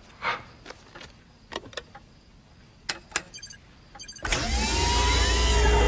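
A staged mechanical sound effect: a few faint clicks, then about four seconds in a loud low rumble with a steady whine over it starts suddenly.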